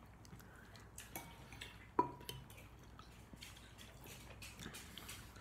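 Metal spoon clinking against a ceramic soup bowl while eating: one sharp clink about two seconds in that rings briefly, and a few fainter clicks around it.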